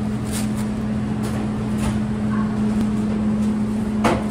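A steady low mechanical hum, with a few short knocks or clatters, the loudest near the end.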